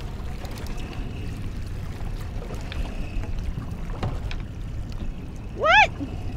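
Steady low rumble of wind and water around a small boat at sea. Near the end comes one short voiced exclamation that rises and falls in pitch.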